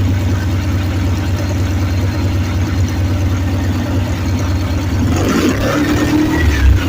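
Volkswagen engine running on LPG gas, idling steadily.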